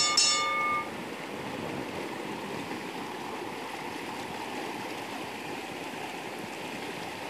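Muddy floodwater rushing steadily through a swollen ditch, overflowing from heavy rain. A brief chime rings within the first second.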